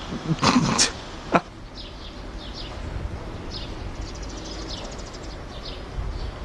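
Small birds chirping over and over in short, high, falling notes, over a steady low city rumble. A loud burst of noise comes about half a second in, and a sharp click follows just after a second.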